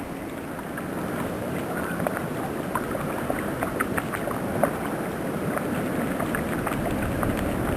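Storm wind blowing steadily over the microphone, rising slowly, with many faint scattered ticks through it.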